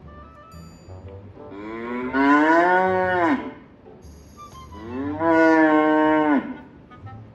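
A cow mooing twice. Each moo lasts about two seconds and rises, then falls in pitch.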